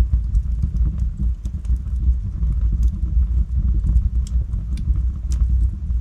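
Logs burning in a fireplace: a steady low rumble of the fire with scattered sharp crackles and pops from the wood, a handful of them standing out over the six seconds.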